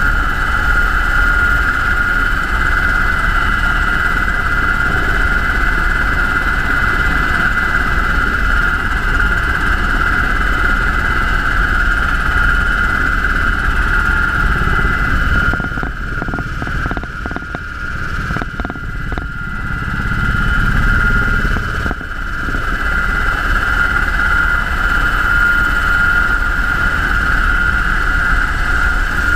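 UH-60 Black Hawk helicopter in flight: a steady high whine over a low rotor and engine rumble. The sound dips and turns muffled for a few seconds about halfway through, then comes back to full level.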